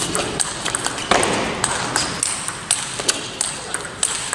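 Table tennis rally: the plastic ball clicking sharply off the rackets and bouncing on the table in quick alternation, with a louder burst of noise about a second in.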